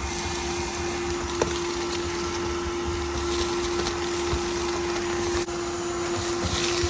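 Vacuum cleaner running with a steady hum, with a single click about a second and a half in.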